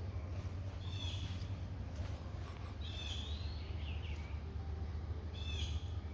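A bird calling outdoors: three short bouts of high chirps about two seconds apart, over a steady low rumble.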